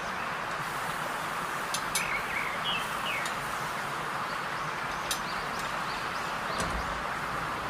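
Hot oil sizzling steadily around frying food, with a few sharp pops and crackles.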